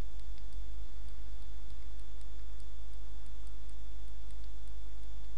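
Room tone: a steady low electrical hum with a faint high whine, and light ticks about twice a second.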